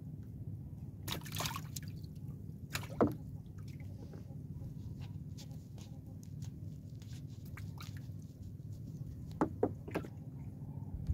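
Water dripping and splashing as a wet fishing net is handled in a small wooden outrigger boat: scattered short splashes and drips, the loudest about three seconds in and a cluster of three near the end, over a steady low rumble.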